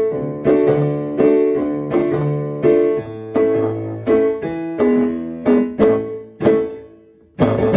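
Piano music: chords struck roughly every two-thirds of a second over a low bass note, each dying away, slowing into a final chord near the end.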